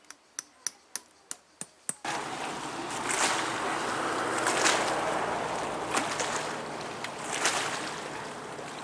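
About seven sharp clicks, roughly three a second, then about two seconds in a sudden change to a steady rushing noise that swells and eases every second or so.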